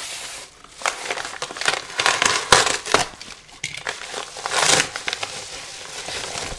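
Yellow padded bubble mailer being handled and opened, with bubble wrap inside. The paper and plastic crinkle and rustle in irregular bursts, loudest about two and a half seconds in and again near the five-second mark.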